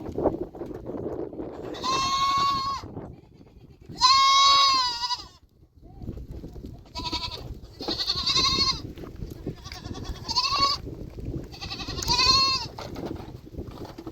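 Goats bleating: about six separate high-pitched bleats, each lasting up to about a second. The loudest comes about four seconds in.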